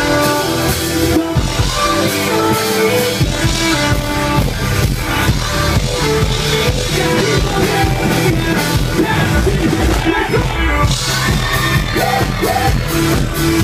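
Live pop-rock dance music: a band with drum kit, electric guitars and bass playing a steady beat, with male vocals sung into handheld microphones over it.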